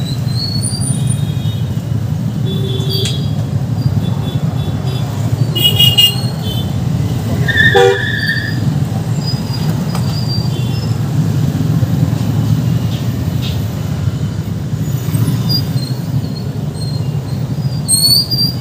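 Heavy street traffic heard from a moving two-wheeler: a steady rumble of engines and road noise, with short vehicle horn toots, the loudest about six and eight seconds in and another near the end.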